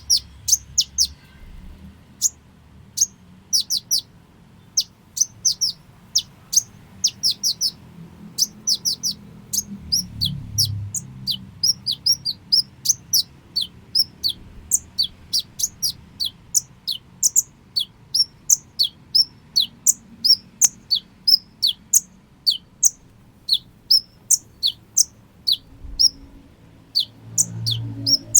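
Sunbird (the 'kolibri ninja' of Indonesian bird-keepers) calling with a long series of short, high, downward-sweeping chirps, about one or two a second, with a few brief pauses.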